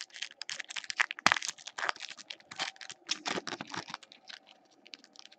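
Foil wrapper of an Upper Deck Ice hockey card pack being torn open and crinkled by hand, with the cards flicked and slid against each other. Dense, rapid crinkling and clicking, with a sharp crack about a second in, thinning out near the end.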